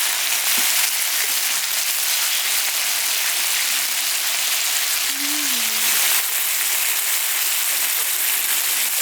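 Pork jowl sizzling on a hot camping grill, a loud steady hiss of fat spitting.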